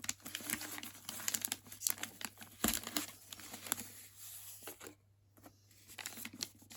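Paper wrapping on a book being torn and crinkled by hand as it is unwrapped: a string of quick crackles and rips, with a short pause about five seconds in.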